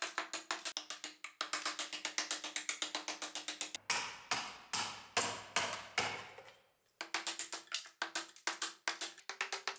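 Quick strokes of a hand tool on an ash axe-handle blank clamped in a vise, breaking out and smoothing the wood between saw cuts, at about eight strokes a second. In the middle stretch the strokes slow to about two a second.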